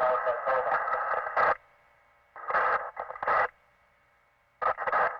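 Police two-way radio traffic through a small speaker: three short, thin, narrow-band transmissions of radio chatter with quiet gaps between, the words not intelligible.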